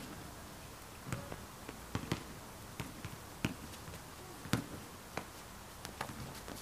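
Basketball bouncing on an outdoor hard court: irregular thumps spaced about half a second to a second apart.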